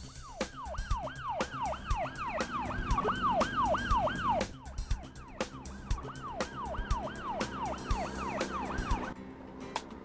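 Police car siren wailing in rapid falling sweeps, about two and a half a second, with a brief pause about halfway and stopping shortly before the end; background music with a steady beat plays underneath.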